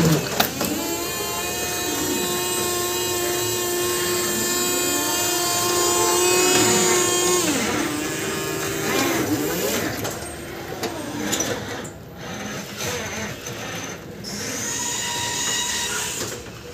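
Electric reach truck's motors whining as it works between the racks: a steady high whine with gliding tones beneath it, stopping about seven seconds in, then a rougher whir as it drives past, and another shorter whine near the end.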